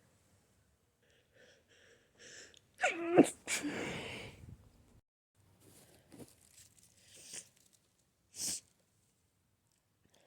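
A person sneezing in an allergy sneezing fit: a few short catching breaths, then one loud sneeze about three seconds in with a breathy tail. Quieter breathing sounds and a short hissing breath follow.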